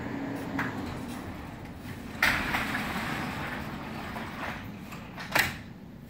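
Retractable garage door screen being pulled down, its rollers rumbling along the tracks, with two sharp knocks: one about two seconds in and a louder one near the end.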